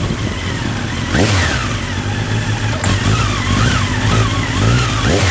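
Honda CB1300's inline-four engine heard close up from an onboard camera, its revs rising and falling quickly over and over as the throttle is blipped.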